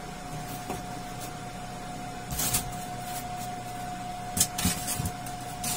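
BGA rework station running, a steady whine and hum while it heats a laptop motherboard, with a few light knocks and clicks about two and a half seconds in and again from about four and a half seconds in.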